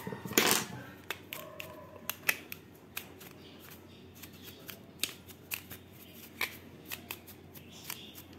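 Paintbrush bristles brushing sawdust off a plastic drill-to-reciprocating-saw adapter: a run of light, scratchy strokes and small clicks as the adapter is turned in the hand. There is one louder knock about half a second in.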